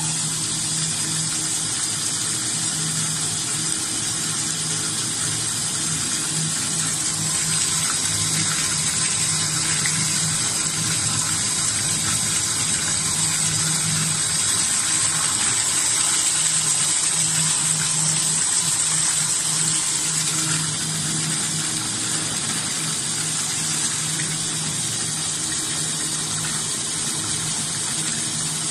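Tap water pouring steadily into a tub of iced water and over a plastic basket of shucked scallops, a constant splashing gush. A steady low hum runs underneath.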